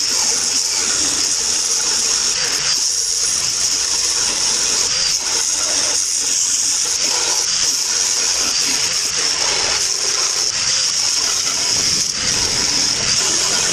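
Angle grinder with a flap disc grinding steel: a steady, loud, high-pitched hiss that runs without a break.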